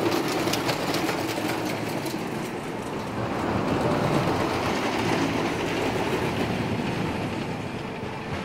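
Wooden roller coaster train (NAD Century Flyer) rumbling and clattering along its wooden track, with sharp clacks at the start, swelling about halfway through and easing off near the end.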